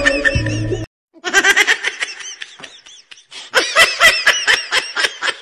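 Karaoke music with singing cuts off abruptly about a second in. It is followed by a meme laughing sound effect: a person laughing in quick, high-pitched bursts.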